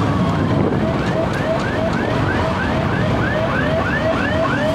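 Kawasaki Rouser RS200 motorcycle running on the road, with wind noise, under a fast warbling siren-like tone of about four or five rising chirps a second that starts at the beginning and keeps on.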